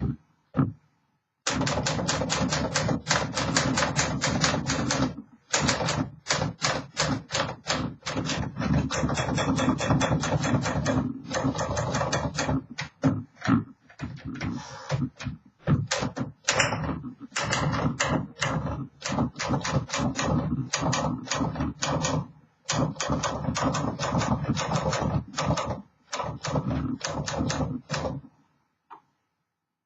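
1949 Smith Corona Silent portable typewriter being typed on: a fast, steady run of key strikes with a few short pauses, stopping shortly before the end.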